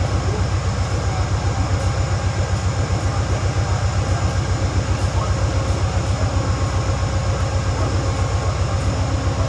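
Railway train noise on a station platform: a steady, loud low hum with a rapid, even throb and a few faint high steady tones, unchanging throughout.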